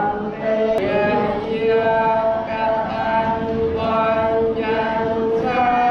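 Group of voices chanting a Buddhist prayer together in unison, in long held, sung notes that step between pitches every second or so.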